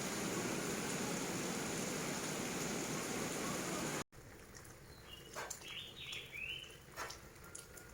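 Steady rain falling, cut off abruptly about four seconds in, followed by a quieter stretch where small birds chirp a few short gliding notes.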